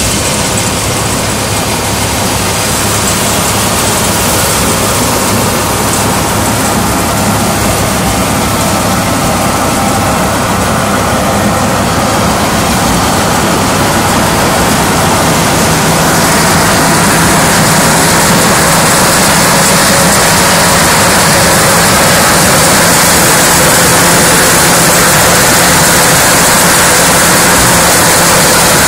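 Threshing machine running steadily, a loud continuous mechanical drone that grows louder and fuller about halfway through.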